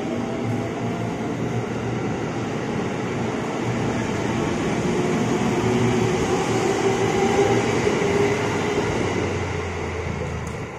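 KRL commuter electric multiple-unit train running along the platform track, a steady rumble of wheels and running gear with a faint motor whine. The sound swells, then falls away near the end as the last car clears the platform.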